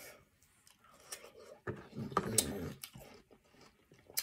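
A person biting and chewing a mouthful of watermelon, with irregular small clicks and smacks of the mouth, busiest about two seconds in.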